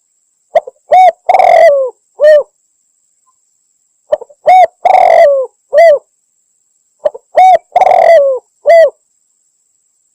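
Spotted dove (tekukur) cooing, sung three times about three seconds apart with silence between. Each phrase is a couple of short coos, a longer coo falling in pitch, and a final short coo. It is a recorded lure call, titled as a female calling a male, that hunters play to draw male doves.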